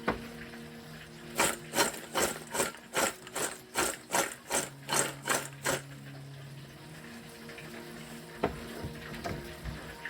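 A kitchen utensil striking a hard surface in a quick run of about a dozen sharp knocks, about three a second, over a steady low hum.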